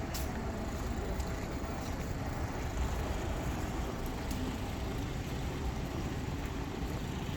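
City street traffic: a steady low rumble of passing vehicles, with a few faint clicks over it.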